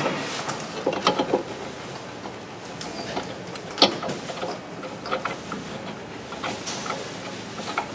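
Scattered light metal clicks and taps from a bolt being worked by hand at the strut-to-steering-knuckle joint of a car's front suspension, with a sharper tap about four seconds in.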